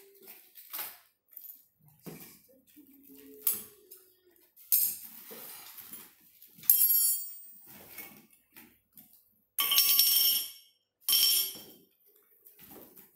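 Metal hand tools such as spanners clinking and clattering as they are rummaged out of a cloth tool bag, with rustling of the bag and wrapping. There are a series of separate clatters, the loudest in the second half.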